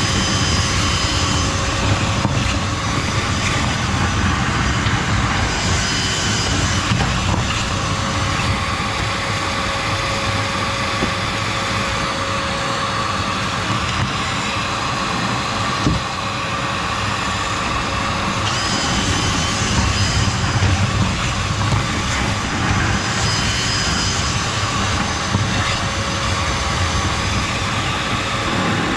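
Chimney sweep's soot vacuum running steadily with a motor whine, its hiss swelling and easing now and then as it sucks up soot from the stove.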